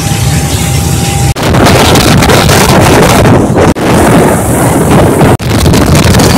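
Strong wind blasting the microphone on the open deck of a moving passenger ferry, a loud, steady roar over the boat's own running noise. It breaks off for an instant three times.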